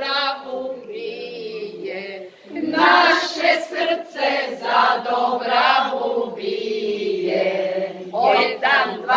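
A group of women singing a Slavonian bečarac verse together without instruments, holding long drawn-out notes.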